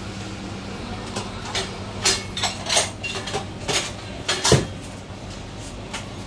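Kitchen utensils clattering: a string of sharp knocks and clinks of utensils against metal trays, a steel pot and plastic boxes, with one heavier knock about four and a half seconds in. A steady low hum runs underneath.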